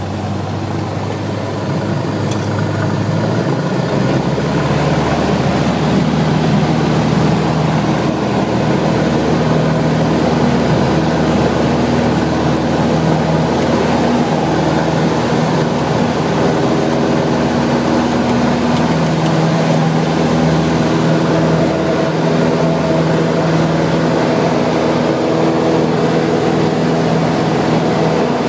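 Light propeller airplane's piston engine at takeoff: the engine note shifts and grows louder over the first few seconds as power comes up, then holds steady at full power.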